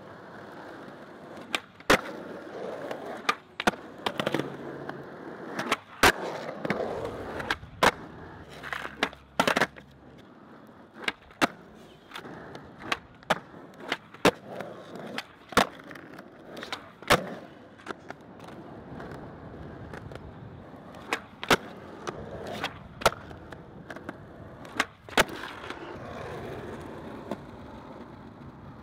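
Skateboard wheels rolling on rough asphalt, broken over and over by sharp cracks of the tail popping and the board slapping down or clattering onto the ground during flat-ground tricks.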